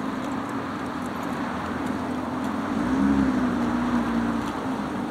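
A motor vehicle's engine hum, swelling as it passes about three seconds in and then easing off, over steady traffic noise.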